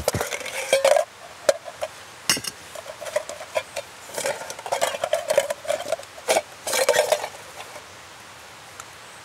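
Clinks and rattles of an MSR Titan titanium kettle being handled and emptied of its nested cook kit, the pieces knocking against the metal pot. The clatter stops near the end.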